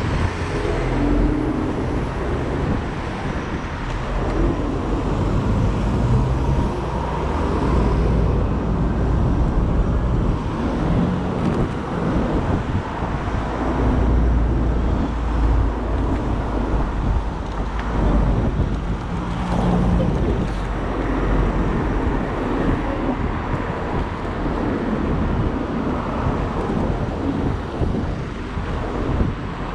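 Road and traffic noise heard while riding an electric unicycle at night, with a heavy, uneven low rumble throughout.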